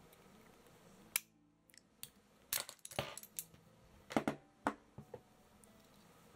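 A run of sharp clicks and clacks from metal locking pliers and a plastic eyelet-setting clamp being handled on a wooden table while closing a metal corset eyelet.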